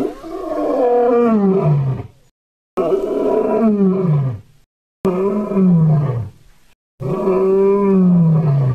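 Four performed creature roars in the style of Fang, Primal's tyrannosaur-like dinosaur, one after another with silent gaps between them; each roar starts high and slides down in pitch before cutting off.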